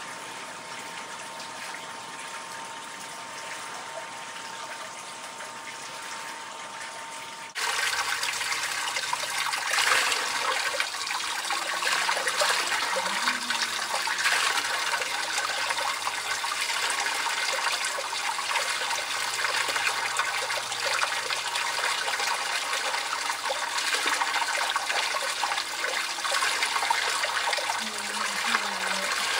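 Hot-spring water overflowing the edge of a wooden bath tub, a steady rush and trickle. It is softer for the first seven or so seconds, then jumps louder and closer and stays so.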